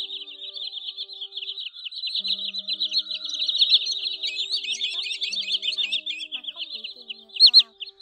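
Green sandpiper calls: a dense, unbroken run of rapid high chirping notes, the flock-calling sound used as a lure for netting shorebirds, with a loud pair of notes near the end. Soft background music runs underneath.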